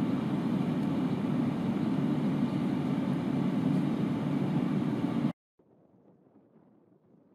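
Steady low rumbling noise that cuts off abruptly about five seconds in, leaving near silence.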